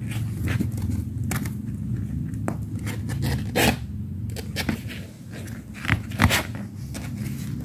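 Kittens' claws scratching and scrabbling on the nylon fabric walls and floor of a playpen: irregular short scrapes and rustles, the loudest about halfway through and again about six seconds in.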